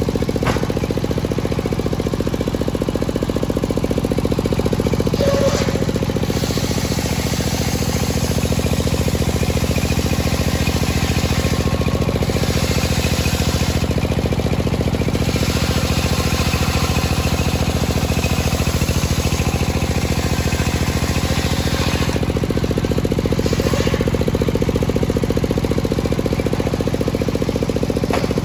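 Large circular sawmill blade ripping a teak log lengthwise. The drive engine runs at a steady, rapid chug beneath the hiss of the cut, and the hiss swells and eases several times as the log is fed through.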